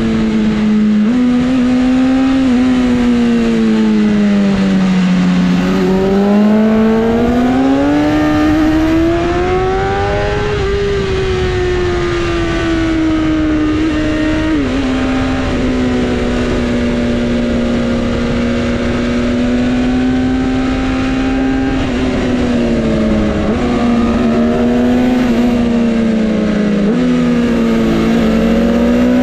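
Sport bike's inline-four engine running at high revs under way, its pitch rising and falling smoothly with speed, with a few sudden steps in pitch.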